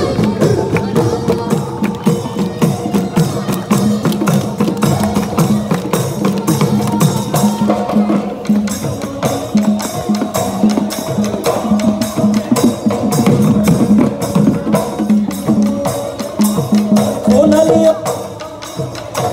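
Bihu folk music with fast, dense percussion strikes over a steady low drone, dipping briefly near the end.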